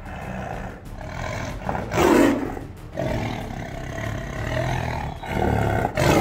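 Tiger roaring, with loud roars about two seconds in and again near the end and quieter sound from the tiger between.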